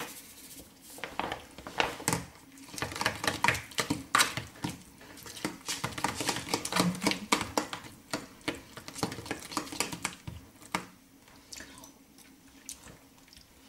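A metal spoon stirring guacamole in a plastic tub: quick clicks and scrapes against the tub's sides and base, which die away about eleven seconds in.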